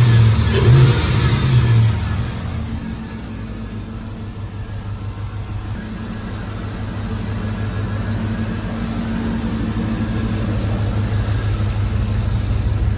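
Car engine revved a couple of times, then settling into an idle with a deep, evenly pulsing exhaust note that slowly grows louder.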